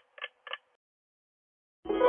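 Quiz countdown clock ticking about three times a second, which stops about half a second in as the time runs out. Just before the end, a loud ringing musical answer-reveal sting begins with a quick rising sweep.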